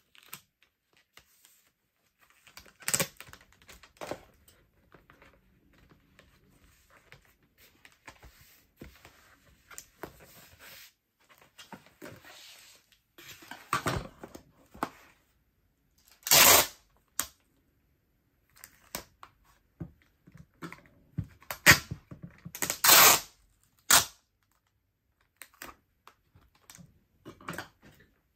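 Clear packing tape ripped off the roll in several loud, rasping pulls and pressed onto a kraft cardboard mailer box, between quieter rustles and taps of the cardboard being handled.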